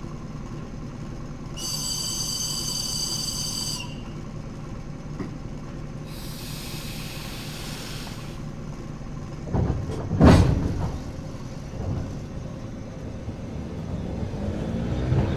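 Electric commuter train at rest with a low steady rumble: a high steady tone for about two seconds, a hiss of air a few seconds later, and a loud bang about ten seconds in. Near the end a rising whine starts as the train begins to pull away.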